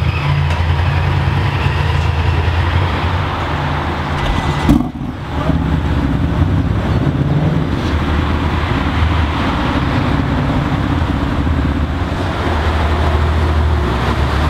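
BMW M4 F82's twin-turbo inline-six idling steadily through its quad exhaust, with a brief break about five seconds in.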